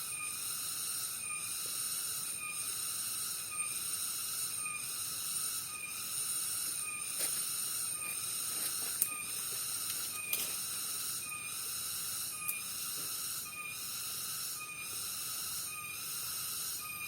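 Continuous chorus of calling animals, pulsing evenly about three times every two seconds, with a few sharp clicks near the middle.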